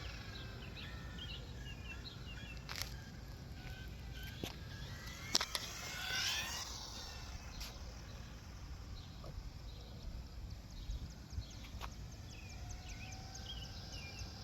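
Hobao V2 touring RC car running at a distance, its motor whine faintly rising and falling in pitch as the car passes, over steady outdoor background noise.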